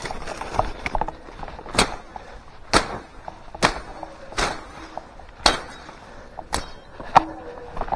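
Footsteps crunching through dry brush and ground litter at a walking pace, about one step a second.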